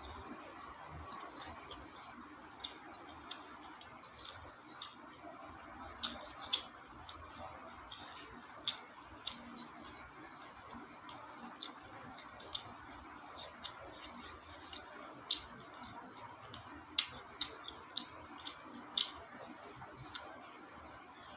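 Eating sounds of someone eating a meal of chili chicken, rice and onion: irregular short, sharp clicks and taps, one every second or two, over a faint steady hum.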